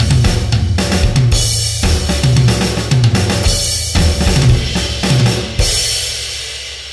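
Background music of a drum kit playing a busy groove on kick, snare, hi-hat and cymbals. It ends on a final crash about five and a half seconds in, which rings out and fades.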